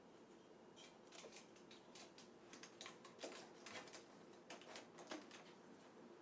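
Faint, irregular light clicks and taps, like small parts or a tool being handled during hand assembly work.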